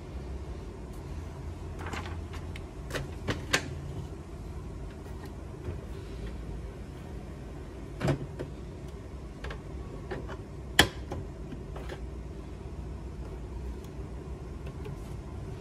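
Plastic clicks and knocks from a Canon inkjet printer's rear paper support and tray being handled and unclipped, a few scattered taps with one sharp snap about eleven seconds in, over a steady low hum.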